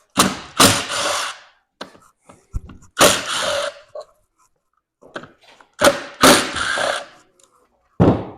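Cordless power driver whirring in four short bursts of about a second each, spinning fasteners out of a snowmobile engine.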